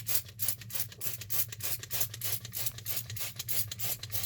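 Fast, even rubbing or scratching strokes, about five or six a second, over a steady low hum.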